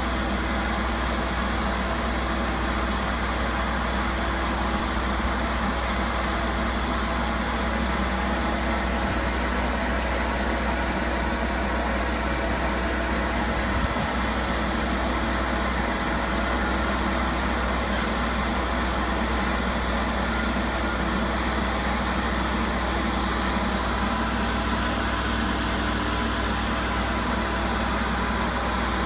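Vacuum excavation truck running its engine and vacuum pump, a loud, steady drone that does not change.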